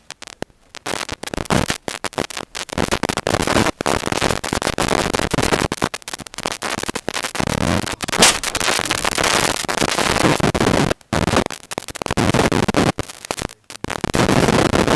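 Loud, crackling driving noise picked up by a car's dash camera, broken by frequent brief cutouts, with one sharp crack about eight seconds in.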